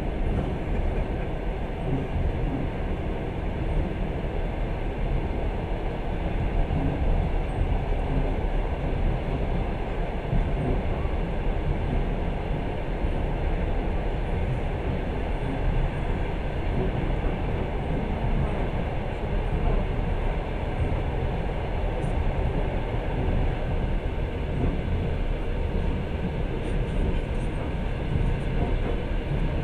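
Steady running noise of a moving passenger train, heard from inside the carriage.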